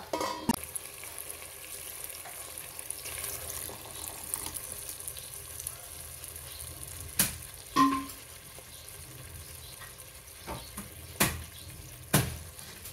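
Pot of sardines and Malabar spinach (alogbati) cooking in its broth, a steady sizzling hiss of the simmer. A few sharp knocks cut through it, one with a short metallic ring.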